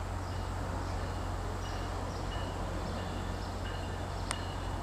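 Steady low rumble of a distant approaching train, with faint short high chirps recurring every half second or so and a single sharp click near the end.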